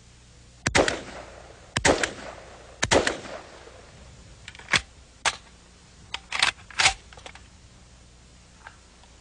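Semi-automatic AK-47 look-alike rifle fired one round per trigger pull, each shot a separate report. Three loud shots about a second apart, each with an echoing tail, then about five shorter, sharper shots at an uneven pace.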